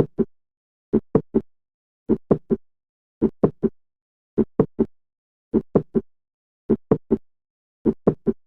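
Heart sounds with a mid-systolic click: groups of three short sounds, the first heart sound, a click midway between, then the second heart sound, repeating about once a second. A mid-systolic click like this is the classic sign of mitral valve prolapse.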